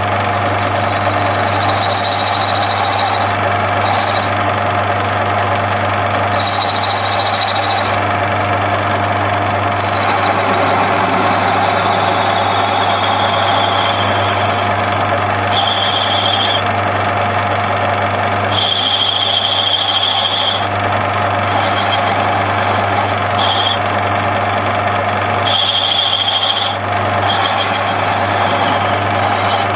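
Lathe running steadily with a constant motor hum, while the cutter on a radius-turning attachment shapes a ball. High-pitched squeals of a second or two come and go several times as the tool cuts.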